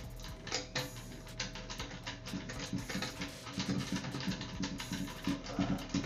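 Irregular light clicks and scrapes of a screwdriver and wrench working a toilet tank-to-bowl bolt loose, over quiet background music.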